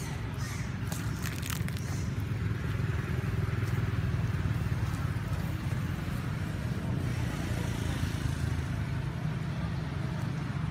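A motor vehicle engine running steadily, a low rumble, with a few faint clicks in the first two seconds.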